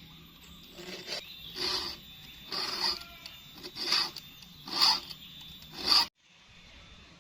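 Repeated rasping strokes, about one a second and growing louder, like a hand file drawn over metal or wood; the sound cuts off suddenly near the end.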